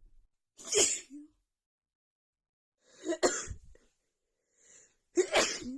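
A woman sneezing three times in quick succession, about two and a half seconds apart, during an allergic sneezing fit that she puts down to her friend's cats.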